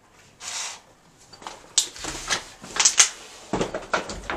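Hotel room door pushed open with a brief swish, then a quick series of sharp clicks and knocks, some with a dull thump, as someone enters the room.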